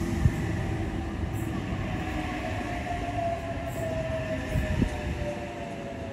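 Outer-suburban Tangara (H-set) electric train pulling slowly into the platform, with wheels rumbling on the rails and a whine that falls gently in pitch as it slows. Two short sharp knocks sound, one just after the start and one about five seconds in.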